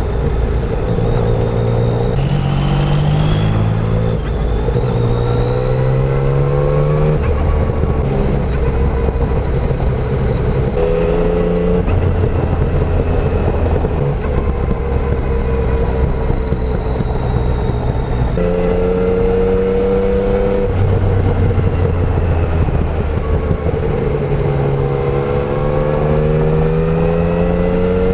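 2020 Yamaha Tracer 900's 847 cc three-cylinder engine on the stock exhaust, ridden through the gears. The pitch climbs under throttle and then drops at each clutch gear change, with a few settled stretches at steady speed.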